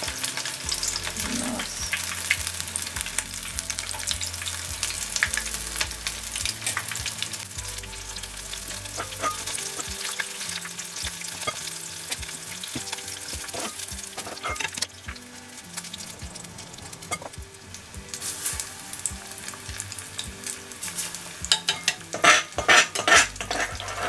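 Shrimp shinjo logs deep-frying in oil at about 160 °C: a steady fizzing crackle of many fine pops. Near the end a burst of louder crackles and clicks.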